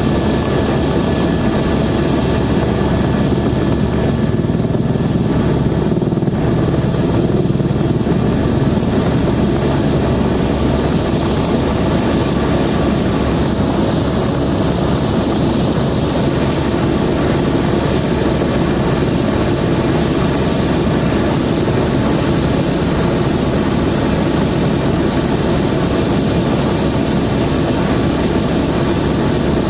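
Helicopter turbine and rotors running steadily in flight, a loud continuous drone with a low rotor throb and steady whining tones, as heard inside the cabin.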